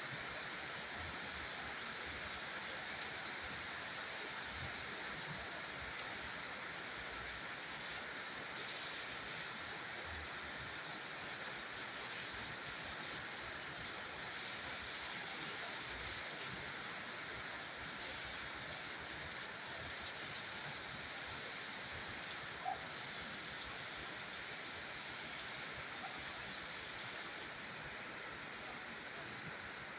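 Steady rain falling, an even hiss with no let-up, with one faint short click about three quarters of the way through.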